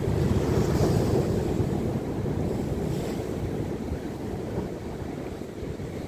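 Atlantic surf breaking over rocks: a steady rumble of waves with the hiss of spray, loudest in the first two seconds and easing off after. Wind buffets the microphone throughout.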